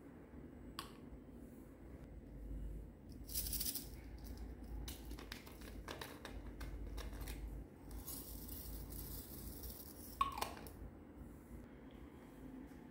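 Small plastic decorations handled over a plastic tray of clear slime: scattered clicks and taps, and a couple of seconds of rattling patter as black sequins are poured in, with a sharp click about ten seconds in.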